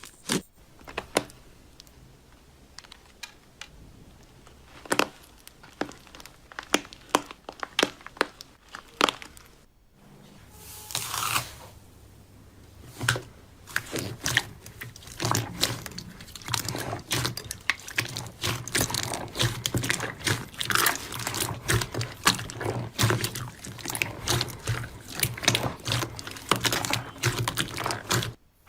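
Slime being squeezed and poked, giving a stream of sharp clicks, pops and crackles. The sound breaks off briefly about ten seconds in, then comes back denser.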